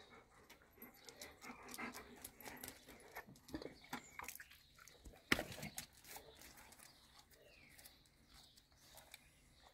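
Faint sounds of a dog and of hands handling its fur and ear, with scattered small clicks and one sharp click a little over five seconds in.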